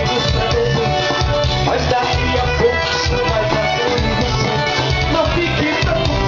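Band music with a steady drum beat and held instrument notes.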